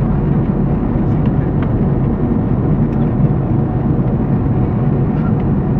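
Steady cabin noise of an airliner in flight, heard from inside the cabin: an even low rumble of engines and rushing air.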